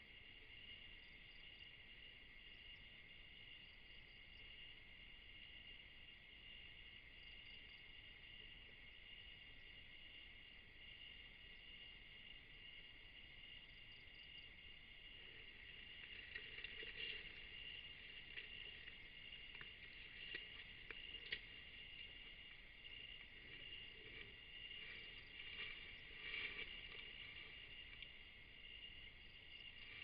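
Steady, high, even chorus of night insects such as crickets. From about halfway through, irregular rustling and scraping join in as the Asian elephant moves close past the camera through the vegetation.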